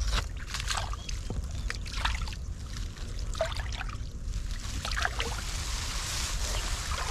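Water splashing and sloshing in short, irregular bursts as hands grope through a flooded hole for fish.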